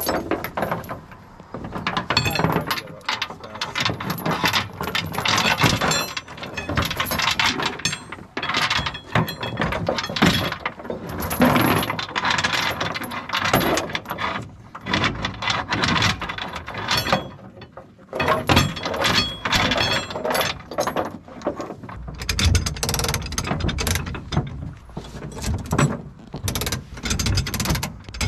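Hand ratchet winch (come-along) cranked in repeated strokes, its pawl clicking and rasping with metal scraping, as it drags a heavy aluminium longline reel up into a pickup bed. A low rumble joins about three quarters of the way through.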